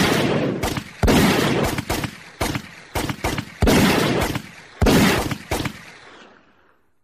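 A string of loud, sharp gunshot sound effects, each bang followed by a long echoing tail, coming irregularly and dying away near the end.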